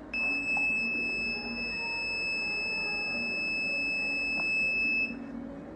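Smart door lock's electronic buzzer sounding one steady high-pitched tone for about five seconds, then cutting off: the lock's alarm after the wrong password has been entered five times in a row.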